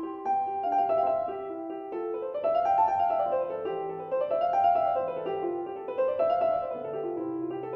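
Background piano music: runs of notes rising and falling in repeated waves.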